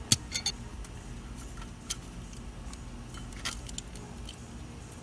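Scattered small metallic clicks and clinks of hand tools and parts being handled while working on a well pump pressure switch, over a low steady background noise.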